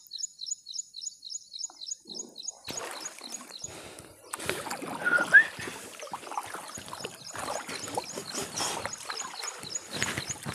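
Water sloshing and splashing in irregular strokes, beginning about a quarter of the way in, with a rhythmic high chirping of about five chirps a second behind it. A short, sharp rising squeak about halfway through is the loudest moment.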